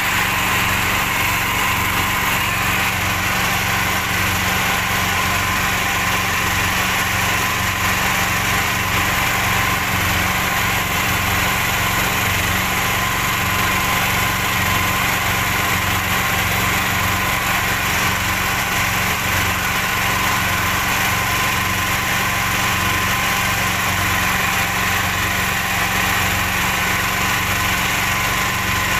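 Inboard engine of a small wooden outrigger fishing boat running steadily at cruising speed, with water rushing past the hull and spray from the wake.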